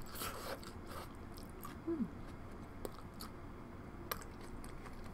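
Close-up chewing of soft, cheesy corn: scattered small wet clicks and smacks of the mouth, with a short falling hum about two seconds in.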